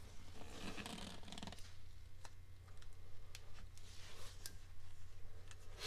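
Quiet handling noises as a new input shaft seal is pressed by hand into a Datsun 240Z four-speed transmission's front cover on a shop rag: a soft rustle in the first second or so, then a few small sharp clicks.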